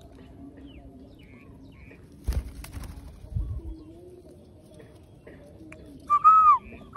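Birds calling: two loud, short, arched calls near the end, each rising and then falling in pitch. A knock about two seconds in, followed by a couple of low thumps.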